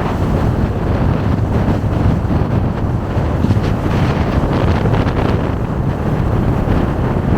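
Steady rumble of a vehicle driving on the road, with wind buffeting the microphone.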